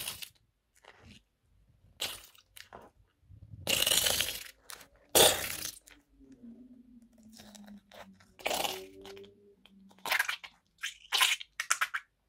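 A spatula pushing and scooping through shaving foam and glitter glue in a plastic tub, heard as a series of short, separate squishing strokes.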